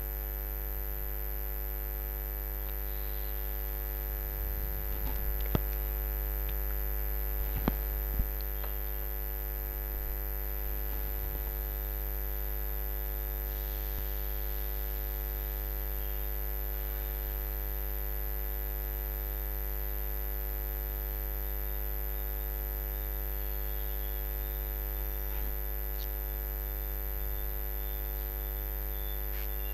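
Steady electrical mains hum with many overtones, with a few faint clicks in the first third and once near the end.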